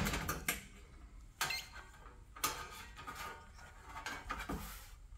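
A handful of faint clicks and taps from multimeter probe tips and test leads being handled and set against a range broiler element's terminals.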